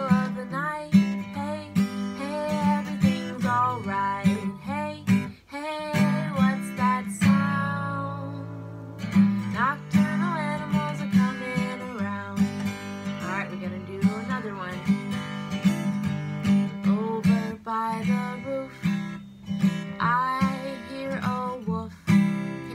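Acoustic guitar strummed in a steady rhythm, with a woman singing over it.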